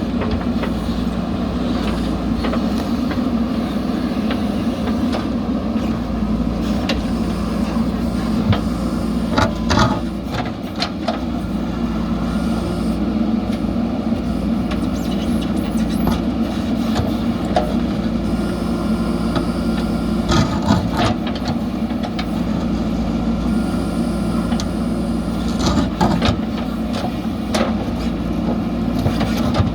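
JCB backhoe loader's diesel engine running steadily under work, with a few sharp knocks at intervals.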